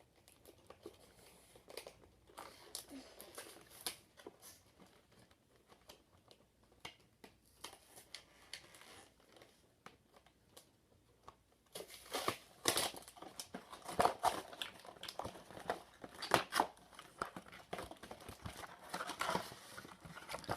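Packaging on a boxed Pokémon trading card deck being torn open and crinkled: sparse light rustles and clicks at first, then from about halfway through, denser, louder crinkling and tearing.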